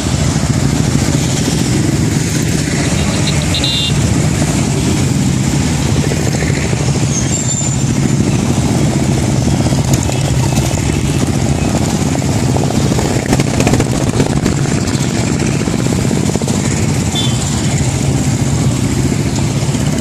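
A long column of motorcycles, many of them Royal Enfields, riding past together, their engines blending into one steady, continuous drone.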